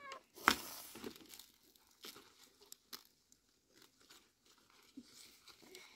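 A few scattered clicks and crinkling crackles, the sharpest about half a second in, with fainter ones spread through the rest.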